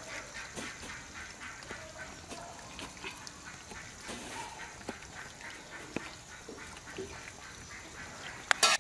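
Ducks quacking in a string of short calls, with a loud, sudden clatter near the end.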